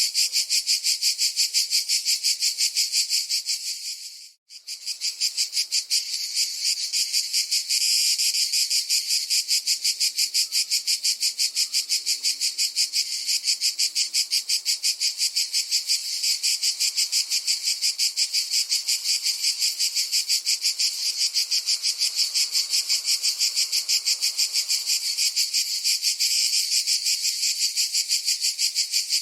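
Cicadas singing: a steady, rapidly pulsing high-pitched buzz that fades out briefly about four seconds in, then comes straight back.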